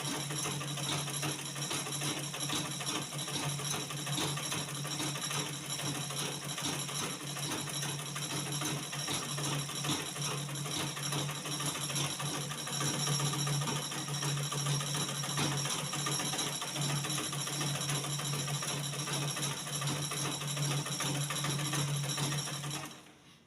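Treadle-driven black-head Butterfly sewing machine running steadily, its needle ticking rapidly, then stopping suddenly near the end. The stitch control is set to the tightest stitch length, so the machine sews extremely slowly.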